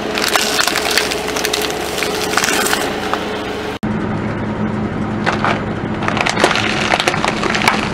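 Car tyre slowly rolling over red cups of Topfer snack sticks: a dense run of crackling and crunching as the cups and crisp sticks split, over the car engine's steady low hum. The sound breaks off abruptly about halfway and picks up again with more crackling.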